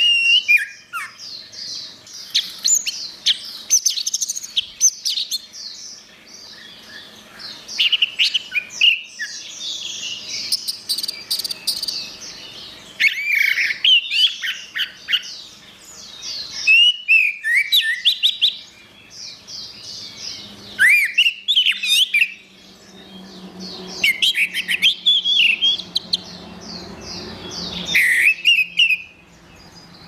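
Orange-headed thrush (anis merah) singing a loud, varied song of quick whistled phrases, many sliding up and down in pitch, in bursts a second or a few seconds long with short pauses between them.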